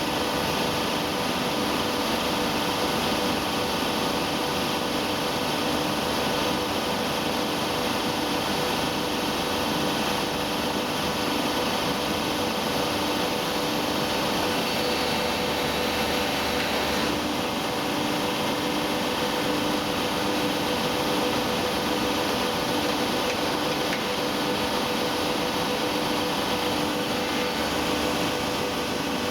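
Industrial machinery of a polyester staple fiber baler line running steadily: a continuous mechanical hum and hiss with a steady tone and a regularly pulsing low tone.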